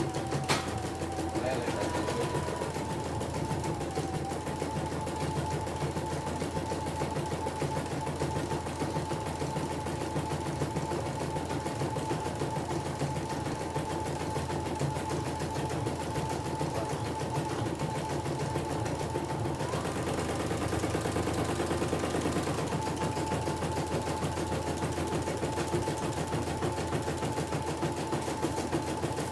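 Computerized home embroidery machine stitching a design: a fast, steady needle rattle over a motor whine. The whine steps up in pitch briefly about two seconds in and again for a couple of seconds about two-thirds of the way through. A single sharp click comes just after the start.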